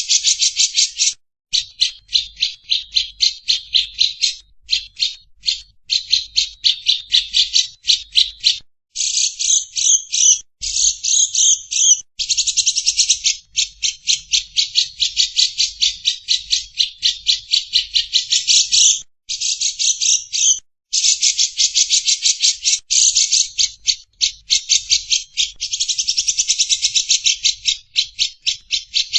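Lovebird's long 'ngekek' chatter: very rapid, high-pitched repeated notes in runs of several seconds, with short breaks between them. This is the sustained chattering prized in contest lovebirds.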